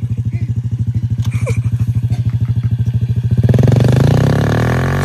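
A small Honda mini dirt bike's single-cylinder engine idling with an even, rapid pulse. About three and a half seconds in, it gives way to a louder, continuous drone whose pitch slowly rises.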